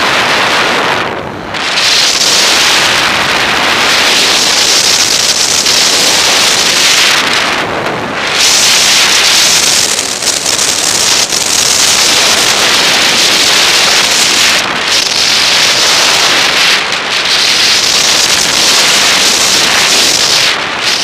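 Wind rushing loudly over an action camera's microphone during a fast downhill ski run, mixed with the hiss of skis sliding over snow; the noise dips briefly a few times.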